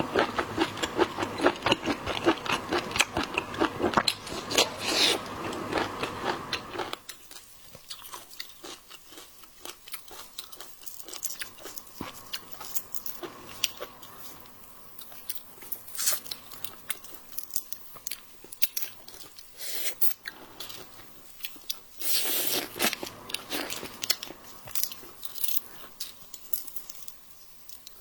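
Close-miked eating sounds: crunching bites and wet chewing of seafood. They are loudest for the first seven seconds and again from about twenty-two seconds in, with quieter chewing in between.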